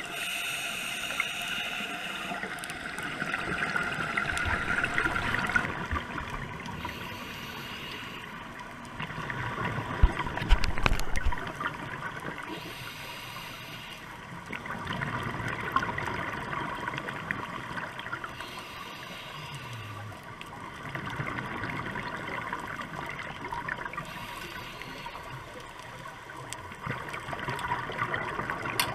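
Underwater sound of scuba breathing through a regulator. Hissing inhalations alternate with gurgling bursts of exhaled bubbles, repeating every few seconds, with the loudest bubble burst about ten seconds in.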